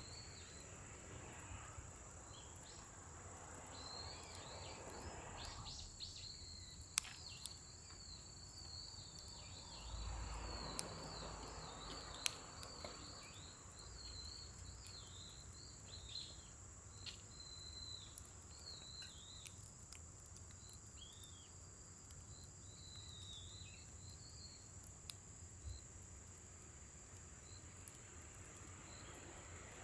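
Faint scrap-wood fire crackling, with a few sharp pops and two soft swells of noise, under a steady high insect drone and a wavering high chirping.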